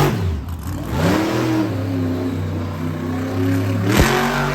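Monster truck engine revving: the throttle drops off at the start, opens up again about a second in and is held high, with a sharp thump about four seconds in.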